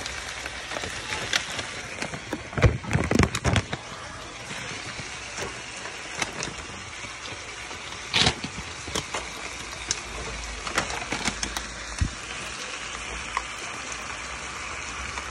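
Mixed vegetables sizzling in a frying pan, a steady hiss. A few sharp knocks of handling the pan come about three seconds in and again near eight seconds.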